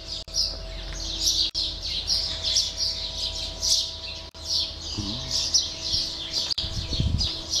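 Many small birds chirping at once, short overlapping calls going on without a break. There is a brief low rumble near the end.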